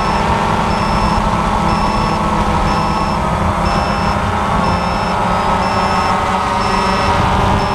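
DJI Phantom FC40 quadcopter's four electric motors and propellers whirring steadily in flight, heard close up from the aircraft. A high-pitched electronic beep repeats about once a second throughout.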